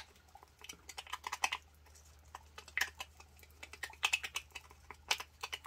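A stick stirring thick acrylic paint and pouring medium in a small pot: many quick, irregular clicks and taps as it knocks against the pot's sides.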